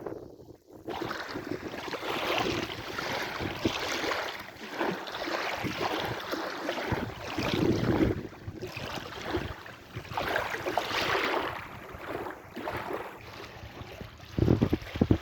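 Sea waves washing in, the surf swelling and falling every few seconds, with wind rumbling on the microphone near the end.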